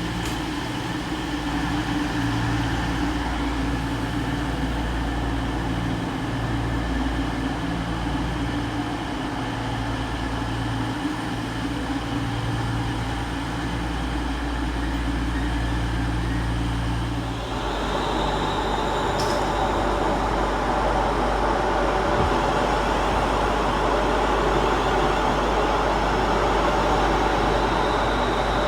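Class 222 Meridian diesel multiple unit idling at the platform, a steady low engine drone that throbs slightly. About 17 seconds in, the sound changes abruptly to a louder, busier train noise with a steady high whine, likely a train powering away.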